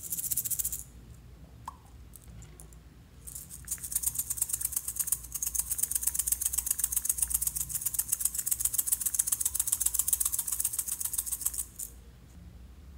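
Small plastic pumpkin rattle being shaken, its loose contents clattering. There is a short shake at the start, then a long run of rapid rattling from about three seconds in until near the end.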